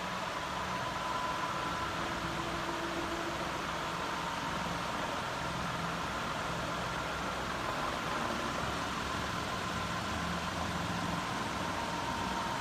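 Havells Mozel ceiling fan running: a steady, even whoosh of moving air with a faint hum.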